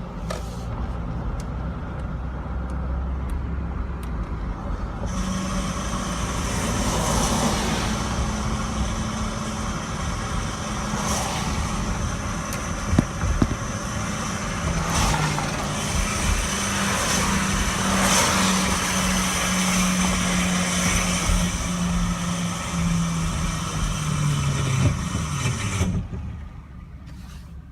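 Ford F-150 pickup running, with a steady high whine over a lower drone. The sound swells about five seconds in, and near the end the drone falls in pitch and the sound drops away.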